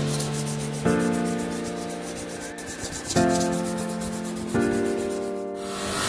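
Sandpaper rubbed rapidly back and forth by hand over a micarta knife handle in quick, even strokes, over background music. Near the end a bench grinder's wheel starts running.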